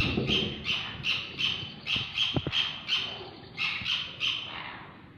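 Sun conure calling in a quick run of short squawks, about three a second, breaking off briefly a little past the middle and fading toward the end.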